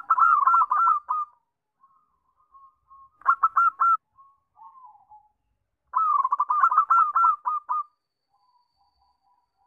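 Zebra dove (perkutut) cooing: three bouts of its fast, staccato trilling coo, the first and last lasting a second or two and the middle one shorter, with faint softer coos between them.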